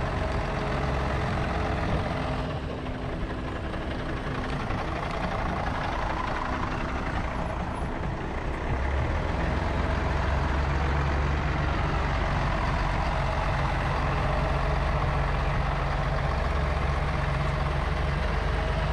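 A large engine running steadily with a low hum under a wash of noise, a little quieter from about two to eight seconds in.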